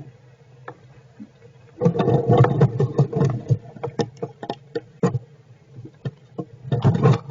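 Squirrels shifting about in their shelter, scratching and rustling the bedding close to the microphone. A burst of crackling scrapes and clicks starts about two seconds in and dies down around five seconds, then a second burst comes near the end.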